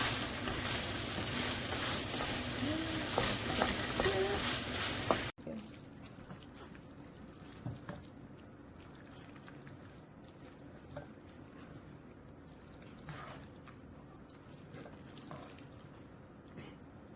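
Food sizzling in a frying pan while it is stirred, a steady loud hiss that cuts off abruptly about five seconds in. Faint, occasional clicks in a quiet room follow.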